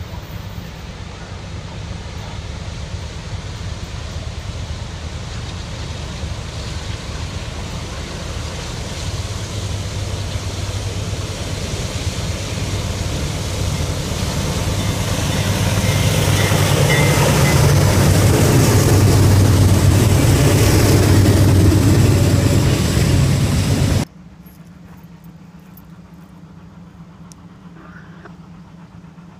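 Norfolk Southern freight train led by GE wide-cab diesel locomotives approaching and passing close by: the engine drone and rolling noise grow steadily louder to a peak over the last several seconds before cutting off suddenly. After the cut, a much quieter steady low hum.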